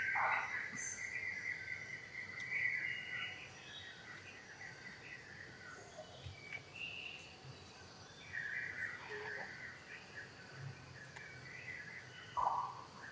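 Outdoor chorus of insects buzzing and birds chirping, with short chirps scattered through it and a brief louder call near the end.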